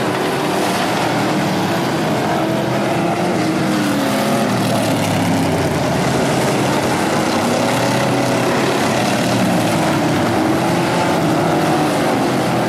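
Several street stock race car engines running on a dirt oval, with overlapping pitches rising and falling as the cars pass and rev.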